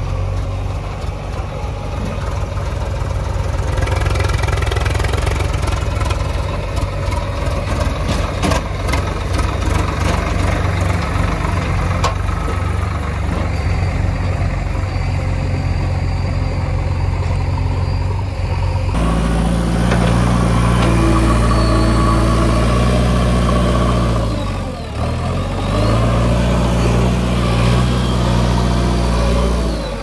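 Heavy diesel engines running: first a tractor pulling a trailer loaded with soil, with a run of sharp rattling clicks about a third of the way in; then, after an abrupt change about two-thirds through, a JCB 3DX backhoe loader's diesel engine working, dipping briefly near the end.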